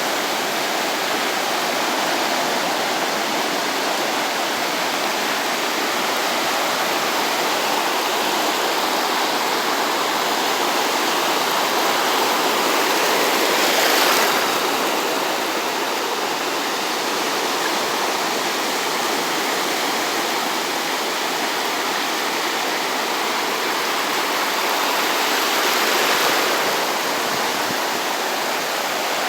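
Small waves of a calm sea breaking and washing up a sandy beach in a steady rush of surf, swelling louder twice, about halfway through and again near the end.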